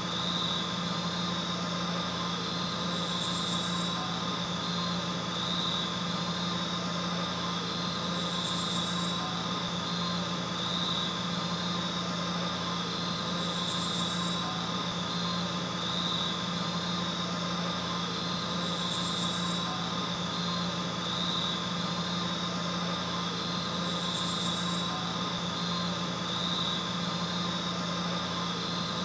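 A steady hum holding several steady tones over a hiss, with a short high-pitched hiss pulse about every five seconds.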